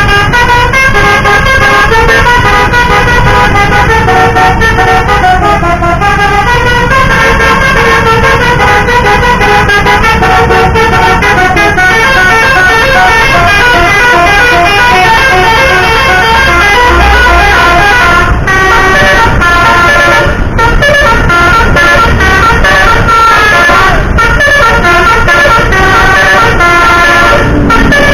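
A bus's telolet basuri musical air horn, loud, playing a tune of quick stepping notes on and on, with short breaks about 18 and 20 seconds in.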